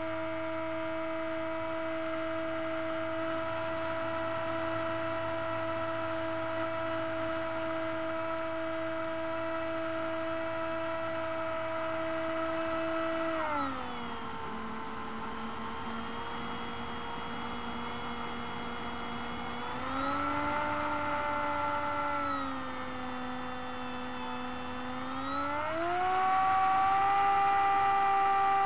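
Radio-controlled seaplane's motor and propeller heard from the onboard camera: a steady whine that drops in pitch about halfway through, rises briefly, drops again, and climbs to a higher pitch near the end as the throttle changes.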